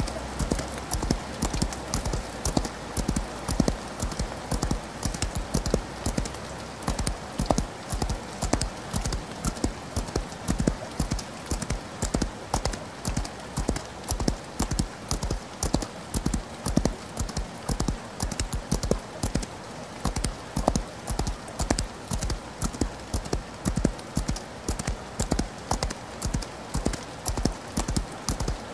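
A horse's hooves galloping, an even, unbroken rhythm of hoofbeats, over a steady hiss of rain.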